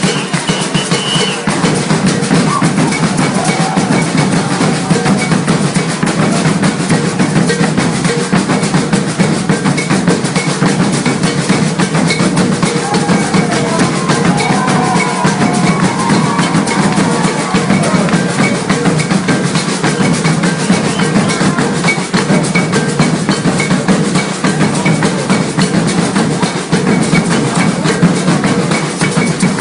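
Maracatu drumming: bass drums and snare drums beating a dense, continuous rhythm.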